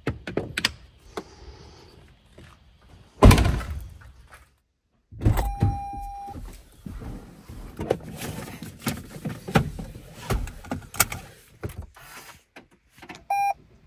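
Toyota Sienna minivan doors and loaded gear clunking and thudding, with a loud door thump about three seconds in. A steady electronic chime lasts about a second midway, and a short beep near the end comes as the push-button start is pressed.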